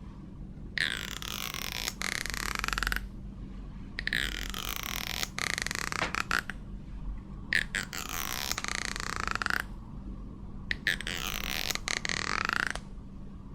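Comb's teeth raked over and over, each stroke a rapid ticking buzz whose pitch bends as it goes: about five drawn-out strokes of one to two seconds with short pauses between.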